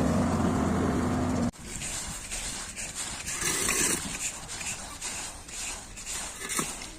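A heavy machine's engine running steadily, cut off abruptly about a second and a half in; after that, quieter uneven scraping and clicking.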